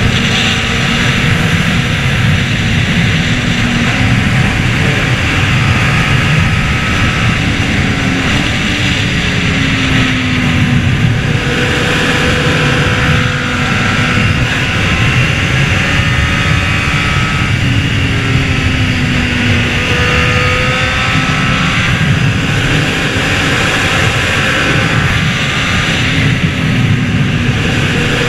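Honda CBR600RR's inline-four engine running at speed, its pitch rising and falling several times as the throttle and gears change through the bends, over a steady rush of wind noise.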